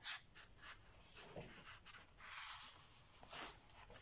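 Faint rustling and a few soft taps of a picture book's paper page being handled and turned by hand.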